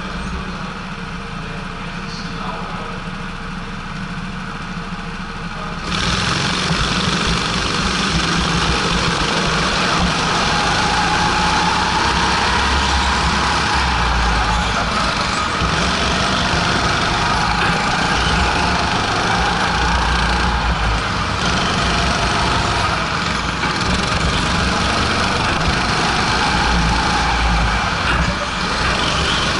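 Go-kart engine running at speed, heard from on board the kart, with the noise of other karts around it; about six seconds in it gets abruptly louder.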